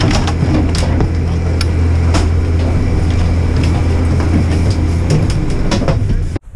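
Gondola loading-station machinery humming steadily, with sharp clacks of skis being slotted into the cabin's outside ski rack and boots stepping onto the metal grating. It cuts off abruptly near the end.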